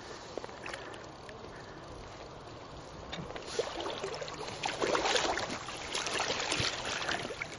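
Water sloshing and splashing in irregular bursts, growing louder about three seconds in.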